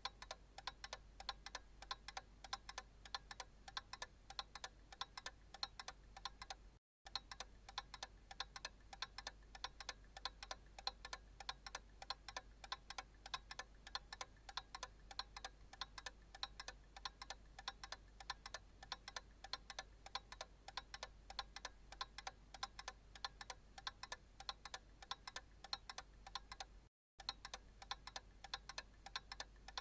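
Analog clock ticking steadily and faintly, with two brief silent gaps, about seven seconds in and near the end.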